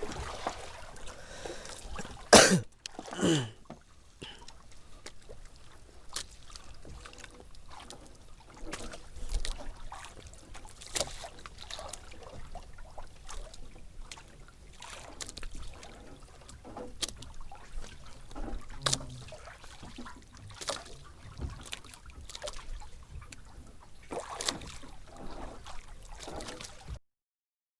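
Water trickling and lapping against a small boat's hull, with scattered small ticks and knocks and two louder knocks about two and a half and three seconds in. The sound cuts off suddenly just before the end.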